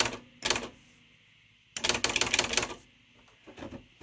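Smith Corona Spell Right III XD 8000 electronic font-wheel typewriter printing characters: the tail of a rapid run of strikes, a single strike, then after about a second's pause another quick run of strikes.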